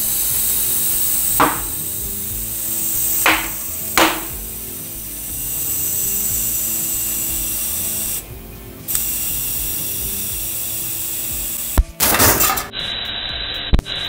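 Compressed air hissing from a tyre inflator into a tubeless mountain-bike tyre, broken by a few sharp pops as the bead snaps toward the rim, and a short pause when the trigger is let go. A sharp crack and a short loud rush come near the end.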